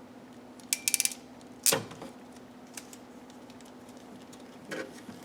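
Crimping tool squeezing a butt connector onto door-harness wires: a quick run of clicks about a second in, then a single sharp snap, and a couple of lighter clicks near the end.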